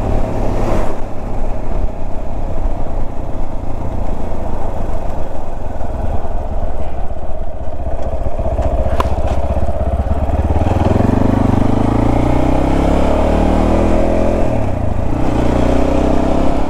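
Motorcycle engine running while riding on the road. About ten seconds in the engine speeds up with a rising pitch, dips briefly near fifteen seconds, then climbs again.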